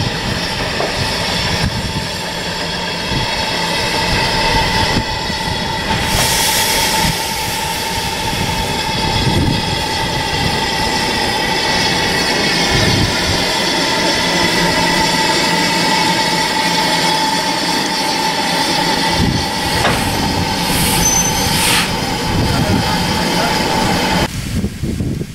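LMS Ivatt Class 2 2-6-0 steam locomotive running slowly past, a steady high-pitched tone over its running noise, with short hisses about six seconds in and again near the end. The sound drops away suddenly about a second before the end.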